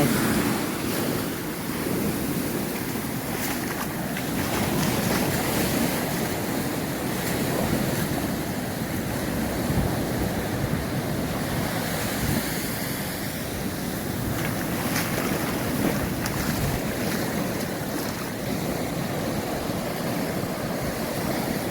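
Caribbean sea surf washing steadily onto a sandy beach, with wind rumbling on the microphone.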